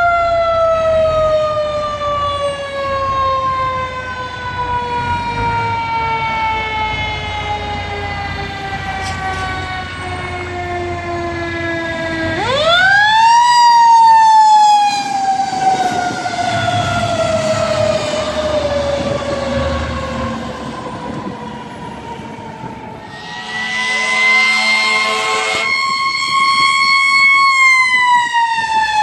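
Fire truck siren in a long, slowly falling wail, spun back up sharply about halfway through and then falling again; near the end it is brought up and held steady before dropping once more. The fire truck's engine runs underneath.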